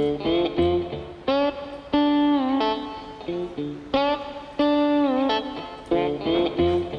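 Background music: a repeating guitar phrase of plucked notes that bend in pitch, with a low bass note under it.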